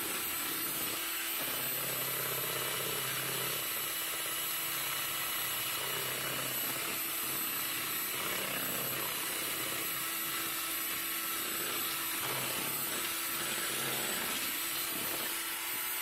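Proctor Silex electric hand mixer running steadily, its twin beaters whipping softened butter with raw eggs in a plastic bowl.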